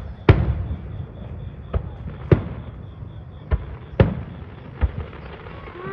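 Aerial firework shells bursting: about six sharp bangs at uneven spacing, the loudest about a third of a second in and about four seconds in, each followed by a low echo.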